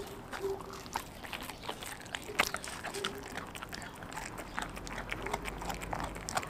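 A pit bull–German shepherd mix dog chewing a raw chicken drumstick: irregular wet crunches and clicks of teeth on meat and bone, the loudest about two and a half seconds in.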